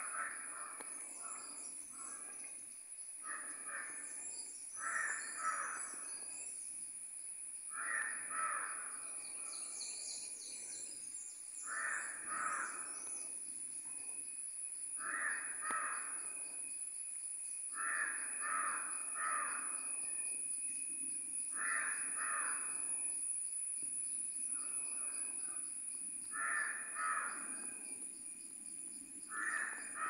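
Crows cawing, in clusters of two or three harsh caws every few seconds. Faint high bird chirps come in now and then, over a steady thin high-pitched whine.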